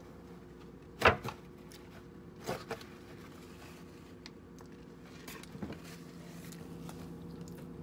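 A sharp crack about a second in, then two smaller clicks around two and a half seconds and a few faint ticks later, over a steady low hum.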